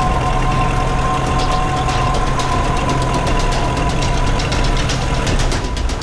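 Motorboat engine running steadily, a continuous low drone.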